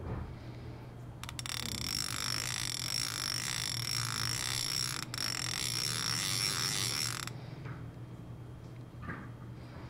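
Daiwa 2021 Zillion SV TW baitcasting reel's drag clicker sounding as the spool slips against the drag: a rapid, even run of clicks merging into a buzz. It starts about a second in, lasts about six seconds and cuts off abruptly.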